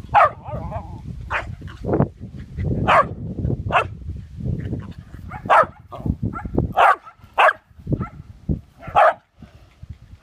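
Swedish Vallhund barking while herding sheep: about eight sharp single barks, roughly one a second.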